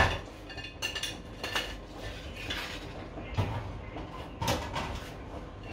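Metal wire deep-fryer basket knocking against the fryer, and a knife clinking and tapping on a plate as fried spring rolls are tipped out: one sharp knock at the start, then scattered clinks and taps.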